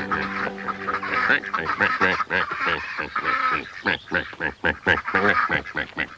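A group of domestic ducks quacking in quick, overlapping calls, several a second. A held musical chord fades out early on.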